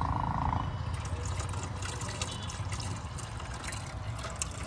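Water trickling and pouring in a small steady stream as bottles of water are poured into an overheated car that has run dry. A steady tone in the first moment stops under a second in.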